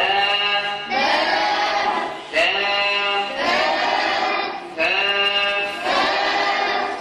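A man chanting melodically into a microphone: a string of long held phrases, each broken by a short breath about every second.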